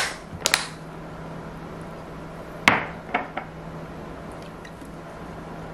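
Plastic snap-lock lid clicking shut on a glass food container, two quick clicks. A couple of seconds later comes a sharper knock of tableware set down on a table, then two light clinks.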